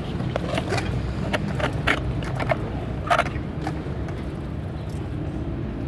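Skateboard rolling on pavement: a steady low rumble from the wheels, with scattered sharp clicks and knocks.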